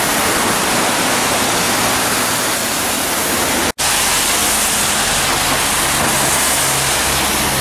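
A swollen river rushing over rocks in a loud, steady roar of water. It breaks off briefly about four seconds in, and a similar steady rushing noise follows with a low hum underneath.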